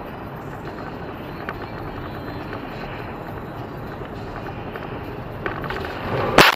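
Steady driving noise of a car on a snow-covered road, heard from inside the cabin, then near the end a loud sudden crash as the car collides.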